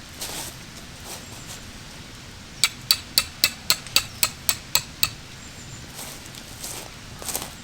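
A quick run of about ten hammering strikes, about four a second, each with a short metallic ring.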